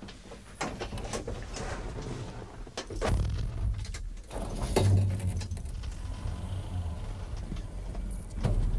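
Pickup truck being boarded and started: a few clicks and knocks, a door shutting about five seconds in, and the engine running with a low rumble from about three seconds in.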